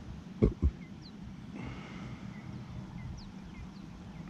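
Two dull thumps in quick succession about half a second in, then a steady low outdoor rumble with a few faint, short bird chirps.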